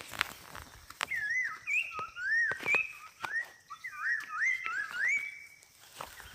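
A poksay mandarin (laughingthrush) whistling a quick run of looping notes that rise and fall, starting about a second in and stopping near the end, over scattered clicks and rustling of handling in the grass.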